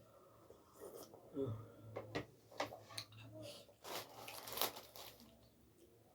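A person eating bread close to the microphone: tearing and chewing, with scattered short sharp clicks and smacks between about one and five seconds in.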